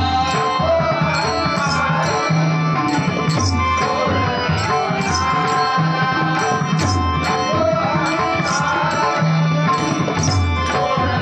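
Marathi bhajan ensemble performing a slow abhang: a man singing long, wavering, drawn-out phrases over a steady held drone, with pakhawaj and tabla strokes and small brass hand cymbals (taal) ticking about twice a second.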